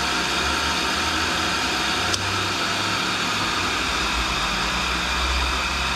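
No. 2 cutter grinder running, its wheel spindle and Century-motored work head turning a hardened lathe center as it is ground true: a steady machine hum and hiss. A single sharp click about two seconds in.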